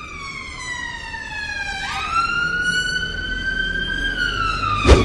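Emergency vehicle siren wailing, its pitch sliding slowly down, jumping up and climbing again, then falling, growing louder as it draws nearer, over a low rumble. A sharp knock near the end is the loudest sound.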